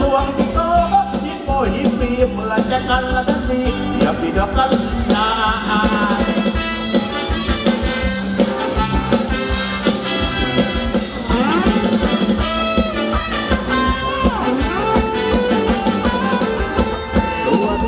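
Live Thai ramwong dance band playing upbeat dance music through a loud sound system: a fast, steady drum beat under a brass-led melody, with a few sliding notes partway through.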